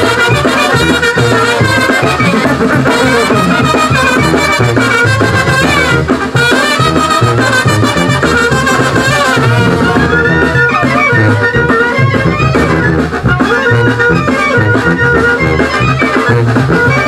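A village wind band plays a traditional dance tune: clarinets and trumpets carry the melody over a tuba bass line.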